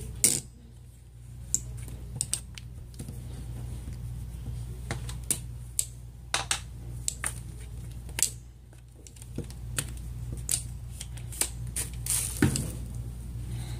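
Scattered small clicks and taps of small tools and parts being handled as an iPhone is taken apart, over a steady low hum.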